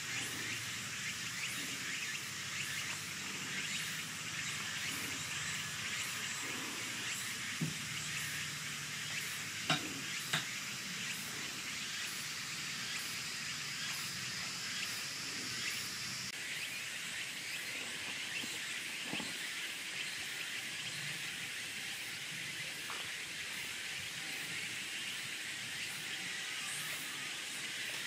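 Steady outdoor hiss with a few faint clicks near the middle; a high, even band within the hiss cuts off suddenly a little past halfway.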